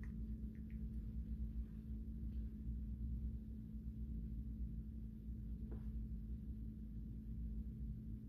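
Soft ambient background music from the Windows 10 setup screen playing on the Surface Pro 7: a steady low drone with a held tone. A few faint clicks sound over it.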